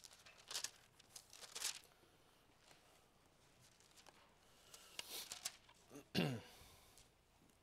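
Pages of a Bible being turned at the pulpit: a few soft paper swishes and rustles. About six seconds in comes a short squeak falling in pitch, the loudest sound.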